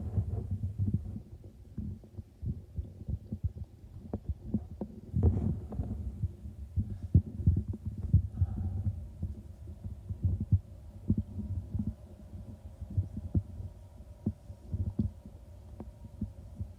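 Wind buffeting a phone microphone outdoors: an irregular low rumble with many dull thumps, and no voices.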